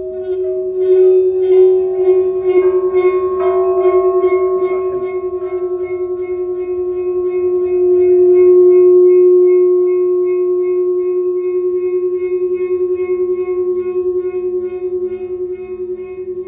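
A sustained ringing tone held at one pitch with a pulsing waver, joined by quick repeated struck notes over the first six seconds. It swells louder about halfway through, then eases off.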